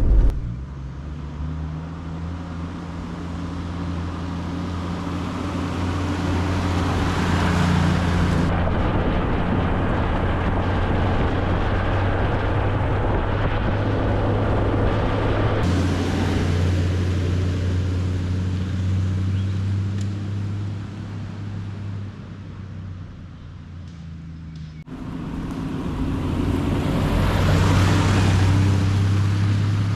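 Toyota LandCruiser Troop Carrier driving on a gravel road: a steady engine drone with tyre and road noise. The sound shifts abruptly three times, dipping quieter for a couple of seconds before the last shift.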